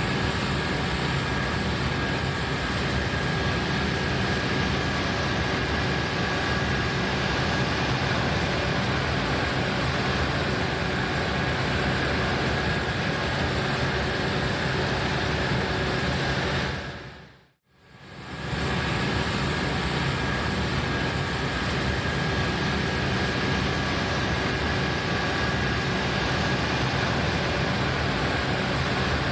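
Large diesel farm machinery running steadily under load, a constant engine drone with a faint steady high whine. It dips out and fades back in about 17 seconds in.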